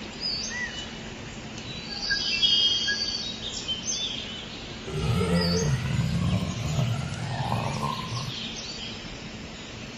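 Sound effects from an animated short: a steady ambient hiss with scattered short bird chirps. About five seconds in comes a low growl lasting a couple of seconds.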